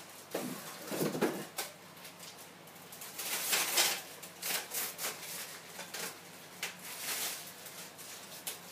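Rustling and light knocks from the bike maintenance stand's parts being handled and unpacked, with a longer rustle about three seconds in.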